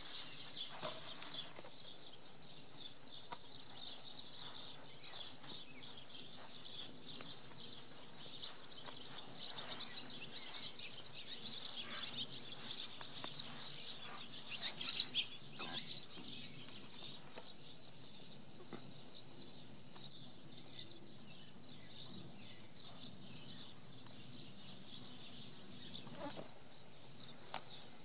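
Birds chirping and calling, busiest through the middle, with one louder chirp about halfway. A faint steady low hum runs underneath.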